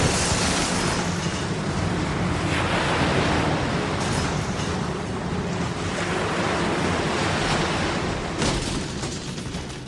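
Loud, steady rushing noise with a low hum beneath it, like wind or traffic, shifting in character a few times.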